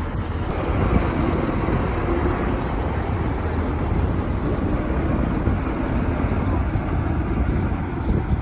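Heavy diesel engine running steadily at an even, loud level.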